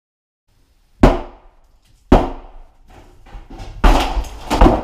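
Heavy blows struck against an old wooden interior door to break it out: single hits about a second apart, then a quick run of several blows near the end, each a sharp crack with a short ringing tail.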